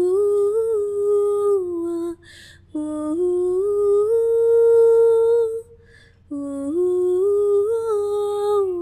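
A woman humming a slow wordless melody in three long phrases of held notes that step gently up and down.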